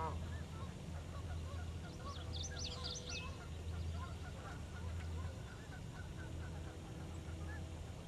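A wetland chorus of distant waterfowl calls and small-bird chirps. A brief flurry of high whistled notes comes about two to three seconds in, all over a steady low hum.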